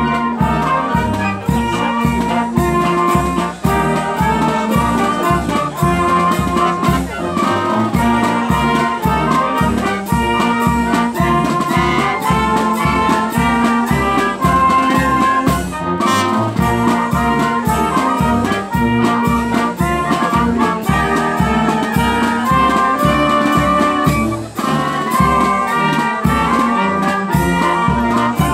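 Wind band of brass, saxophones and clarinets, with bass drum, playing a tune with a steady beat.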